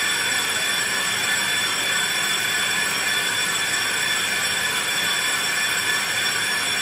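Brake rotor spinning on a lathe while a tool bit cuts across its braking face to resurface it. The cut gives a steady metallic whine with several high ringing tones.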